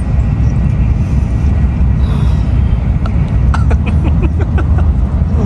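Steady low rumble of a Shinkansen bullet train running, heard from inside the passenger cabin.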